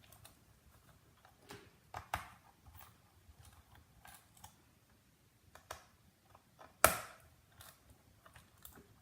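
Plastic memory access panel being fitted back onto the underside of an HP laptop: scattered light clicks and taps, with one louder click about seven seconds in.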